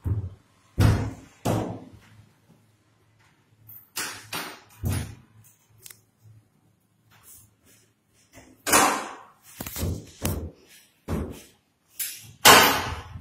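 Hinged doors of a built-in wardrobe being swung open and shut, giving a string of sharp knocks and thuds: a few near the start, a couple around the middle, and a quick run of them over the last few seconds.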